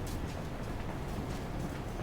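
Steady outdoor street ambience with faint, irregular footsteps clicking on paving.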